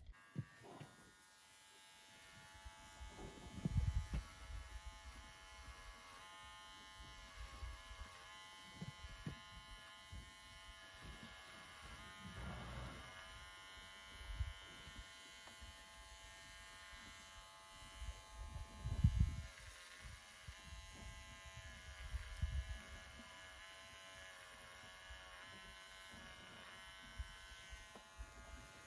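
Small electric clippers buzzing steadily as they are worked around a mule's poll and ears. Several dull low thumps come and go over the buzz, the loudest a little after the middle.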